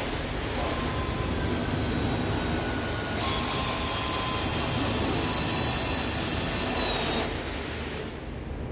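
Cordless drill boring a hole into stacked pine 2x10 boards with a long thin bit. The motor whines at a lower speed at first, then runs louder at full speed for about four seconds, with the bit cutting through the wood, before stopping about seven seconds in.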